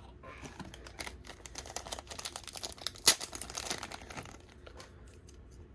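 Crinkling and rustling of plastic packaging as small plastic toy rings are handled and taken out, with a sharper click about three seconds in; it dies down near the end.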